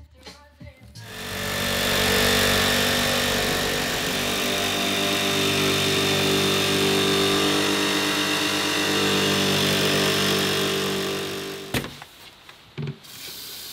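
Electric jigsaw running steadily as it cuts through a wooden countertop, a steady motor whine over sawing noise for about ten seconds, stopping suddenly near the end.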